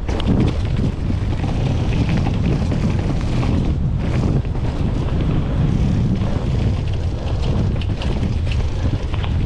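Wind buffeting the microphone on a mountain bike descending a dirt singletrack, over steady tyre rumble, with scattered small clicks and rattles from the bike.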